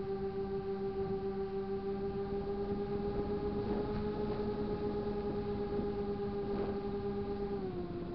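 Radio-controlled airplane's motor and propeller whining at a steady pitch, heard from the camera on board, over wind rush; the pitch drops a little near the end.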